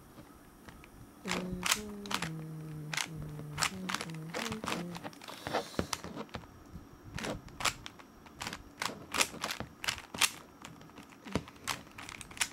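Plastic clicking and clacking of a Siamese cube's layers being turned by hand, in a run of quick irregular clicks. In the first few seconds a low voice hums a few notes over the turning.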